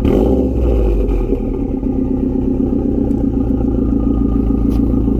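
Turbocharged flat-four engine of a 2021 Subaru WRX STI running warm through a 3-inch catted downpipe and AWE Touring cat-back exhaust. A short surge right at the start fades over about a second, then it settles to a steady idle.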